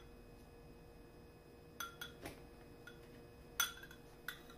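Metal spoon clinking against a glass bowl while scooping taco meat: about half a dozen short, sharp clinks from about two seconds in, the loudest a little before the end.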